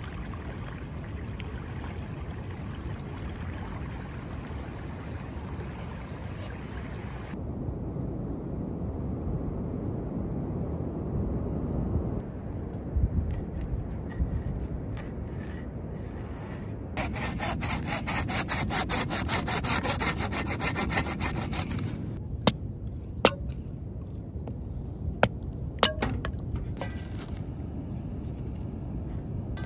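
Wind and surf noise at first. Then a knife saws through a crusty bread loaf in rapid strokes for about five seconds, followed by a few sharp clicks.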